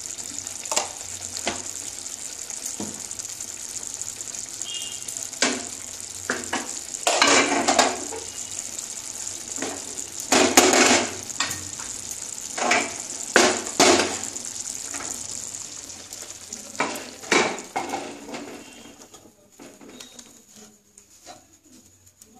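Thick mustard-and-poppy-seed gravy with lentil bori sizzling in a non-stick pan, with a wooden spatula stirring and scraping the pan in a dozen or so sharp strokes. The sizzling fades near the end as the pan comes off the heat.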